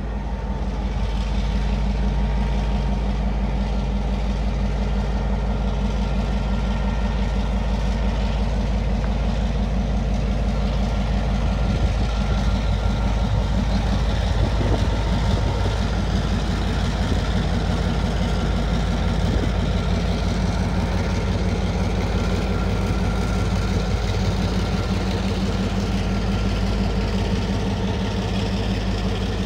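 Orange Taiwan Railway diesel locomotive running light, its engine running at a steady low speed with an even, low drone as it creeps past.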